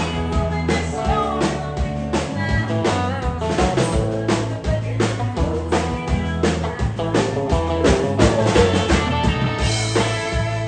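Live country band playing an upbeat song with drums, bass, acoustic and electric guitars, and a woman singing.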